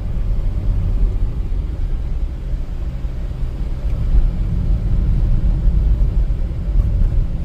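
Steady low rumble of a car on the move, heard from inside the cabin: road and engine drone.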